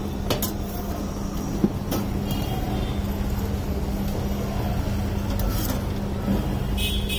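Steady rumble of street traffic with a constant low hum, broken by a few light clicks and one sharp knock about one and a half seconds in.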